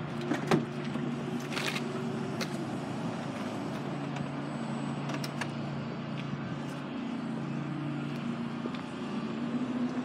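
A vehicle engine idling with a steady low hum that shifts slightly in pitch about seven seconds in, with a few light clicks and knocks.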